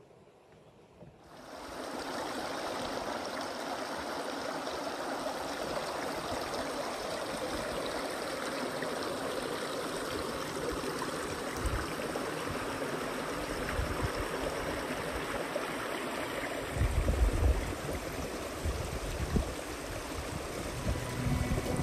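Small woodland stream running over rocks: a steady rush of water that starts suddenly about a second in. Low rumbling comes in under it near the end.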